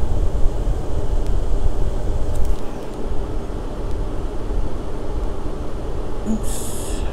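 Steady low rumble of a room air conditioner running, with a couple of faint ticks and a short hiss near the end.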